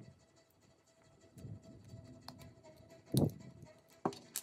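Hobby nippers cutting plastic model-kit parts from a grey runner, with the runner being handled: a dull plastic knock about three seconds in, then two sharp snips in quick succession near the end.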